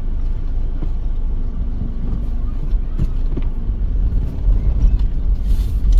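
Steady low rumble of a car driving slowly, heard from inside the cabin: engine and tyres on a paving-stone street.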